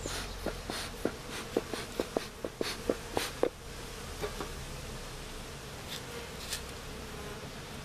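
Honeybees buzzing at an open hive, with a quick run of sharp clicks and knocks during the first three and a half seconds, then the buzzing alone with a couple of faint clicks near the end.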